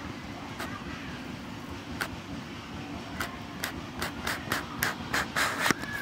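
A series of sharp clicks, sparse at first, then coming about three a second and getting louder toward the end, over a steady low rumble.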